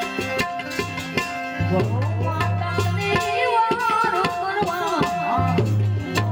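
Live Indian devotional music with tabla strokes and held harmonium notes. About two seconds in, a voice comes in singing an ornamented, wavering line, then drops out shortly before the end.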